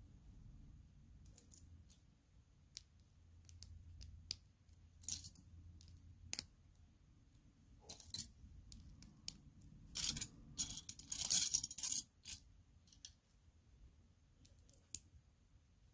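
Small plastic Lego pieces clicking and clattering as they are handled, with a longer rattle of pieces being stirred about two-thirds of the way through.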